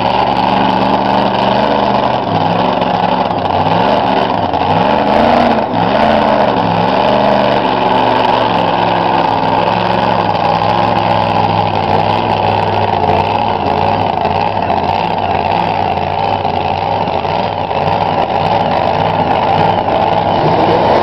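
A drag racing car's engine running loudly at the line. In the first half it is blipped several times, its pitch rising and falling, then it holds a steadier, rougher note.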